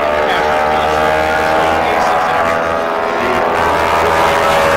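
Pratt & Whitney R-1340 Wasp radial engines of North American T-6 Texan aerobatic aircraft droning steadily with propeller noise as the formation loops overhead.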